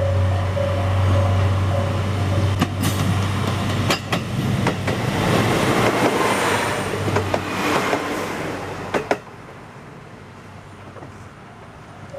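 A JR Kyushu KiHa 200 series diesel railcar passing close by. A low diesel engine drone gives way to a loud rush of wheels on rail, with clicks in quick pairs as the bogies cross rail joints. The sound cuts off fairly suddenly about nine seconds in, once the train has gone by.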